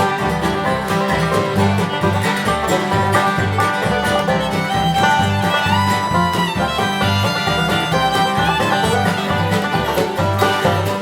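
Bluegrass-style string band music with a steady bass beat.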